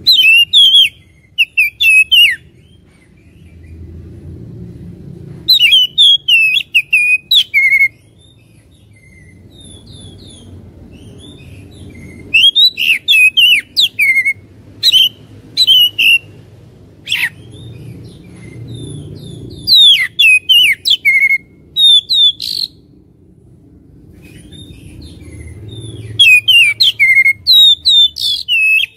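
Oriental magpie-robin (kacer) singing loud, rapid phrases of varied whistled and chirping notes, each a second or two long, with pauses between them, several times over. This is the heated, persistent song used as a provocation recording (pancingan) to stir a caged male kacer's fighting spirit. A low rumble of background noise swells in the gaps between phrases.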